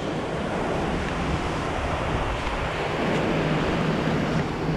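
Steady wash of surf on a sandy beach, with wind buffeting the microphone.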